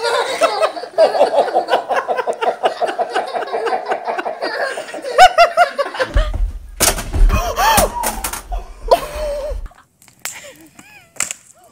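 High-pitched laughter in a long run of quick, even 'ha-ha' pulses. From about six seconds in there is a low rumble and a few sharp knocks, then it goes quieter near the end.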